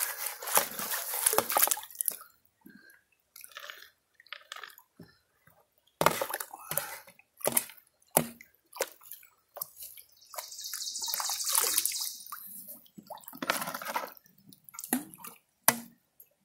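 Water sloshing and splashing in a plastic gold pan as pay dirt is washed in a creek, in short irregular bursts, with a longer steady rush of water about two-thirds of the way through.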